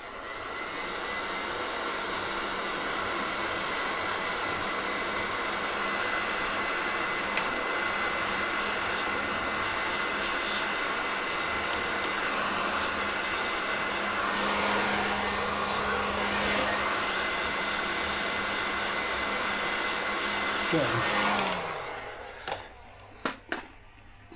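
Electric heat gun running steadily, blowing hot air to shrink heat-shrink tubing over soldered wire joints. It is switched off about 21 seconds in, its motor hum falling in pitch as it winds down.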